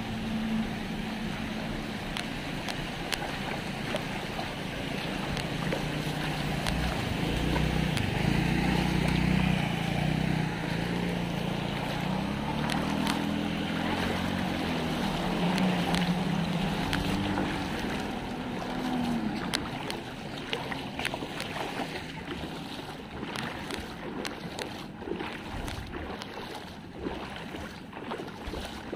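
A light van's engine running as it drives slowly through floodwater, its wheels pushing and splashing the water, with the engine note rising and falling. After that the engine fades and the water sloshing and wind buffeting the microphone remain.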